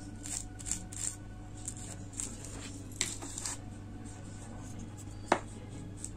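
Soft scraping and dabbing of a paintbrush being dipped in a small cup of varnish and wiped on the cup's rim, with one sharp tap about five seconds in, over a faint low hum.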